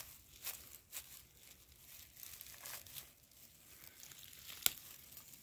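Dry forest-floor litter rustling and crackling, with scattered short crackles and one sharp snap about four and a half seconds in.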